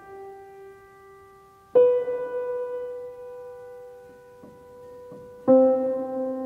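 Slow piano notes, each struck and left to ring and fade: one dying away at the start, a new note about two seconds in, and a lower, fuller one near the end.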